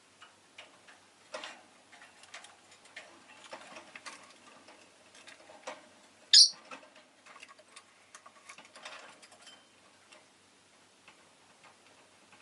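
Rosy-faced lovebird giving one short, sharp high chirp about six seconds in, among scattered small clicks and taps.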